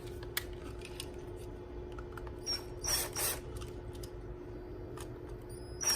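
Small hand tools and wires worked on a 22mm push button switch's terminals as the wiring is moved over to the normally closed contacts: a click, then short scraping rasps about three seconds in and again near the end, over a steady hum.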